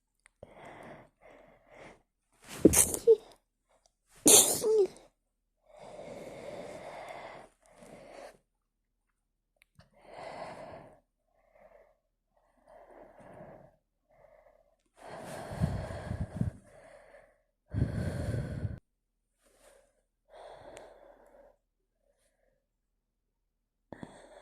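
A woman sneezing twice in quick succession, sharp and loud, about three and four and a half seconds in, after trying to hold the sneezes back. Breathy sniffs and breaths follow, with two more heavy bursts later on.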